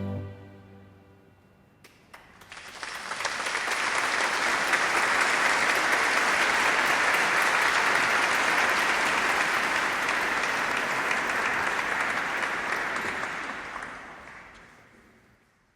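The last sustained chord of the song dies away, then a crowd applauds. The clapping swells within a second, holds steady for about ten seconds, and fades out near the end.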